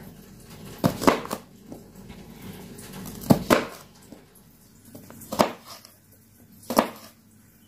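A kitchen knife slices through raw green beans and strikes a plastic cutting board: about seven sharp cuts, irregularly spaced, some in quick succession, with short pauses between.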